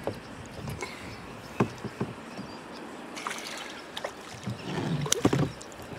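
Scattered knocks and rustling of fishing tackle being handled in a kayak, with the loudest cluster of knocks about five seconds in.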